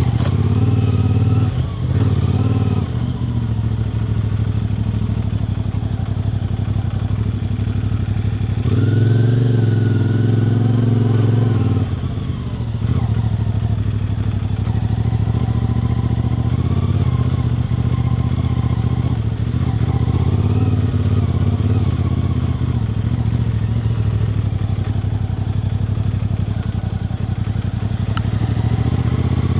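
A vehicle engine running steadily while under way, as on a ride. About nine seconds in, the engine note rises and grows louder for roughly three seconds, then drops back to a steady run.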